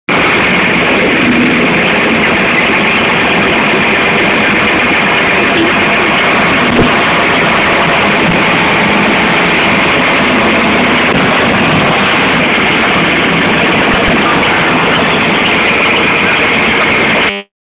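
Vehicle engine running steadily at close range, loud and noisy, cutting off suddenly near the end.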